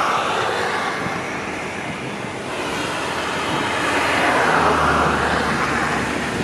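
Taiwanese fire-fishing boat at work at night: a steady rushing hiss and splash from its torch and the churned water, swelling about four seconds in, with a low engine hum joining soon after.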